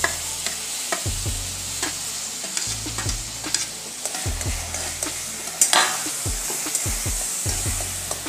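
Mashed ripe banana sizzling in hot ghee in a metal kadhai, with a steel spatula scraping and clicking against the pan as it is stirred and pressed. The loudest scrape comes about five and a half seconds in.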